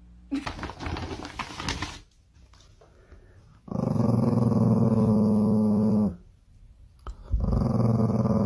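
Small Chihuahua-type dog growling in two long, steady growls: the first begins a little under four seconds in and lasts over two seconds, the second starts near the end.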